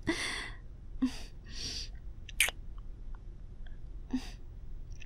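Close-miked kissing sounds made by a voice actress: a series of short, breathy mouth noises and sharp wet lip smacks, roughly one a second.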